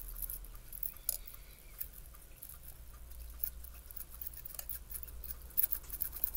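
Tiny toy chocolate chips shaken from a small shaker container onto a toy plate: light, irregular ticks and clicks that come thicker near the end.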